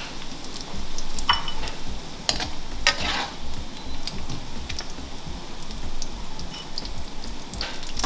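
Pieces of goat meat sizzling in oil in a non-stick wok, with a metal spatula stirring and turning them in short scrapes against the pan every second or so.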